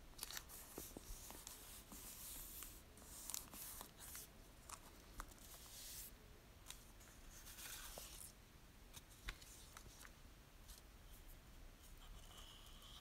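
Faint papery rustling and rubbing as fingers smooth a freshly glued paper scrap flat onto a notebook page, in two spells with a few small clicks.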